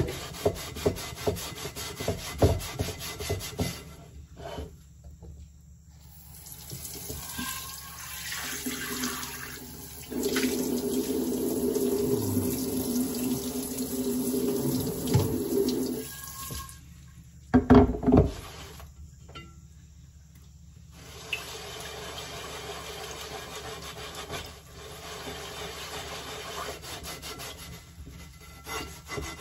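Water from a kitchen faucet's pull-down sprayer rushing steadily over an unglazed clay pan in a stainless-steel sink for several seconds, with a scrubber rubbing on the pan before and after. A single loud knock about two-thirds of the way through.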